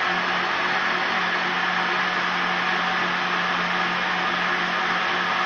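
Countertop blender motor running steadily at full speed, blending strawberries with lemon juice and sugar: a constant whir with a steady low hum.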